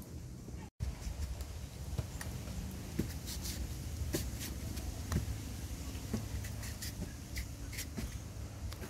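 A large kitchen knife cutting through a firm, unripe green mango held in the hand, with short crisp cuts about once a second over a low steady rumble. The sound drops out briefly near the start.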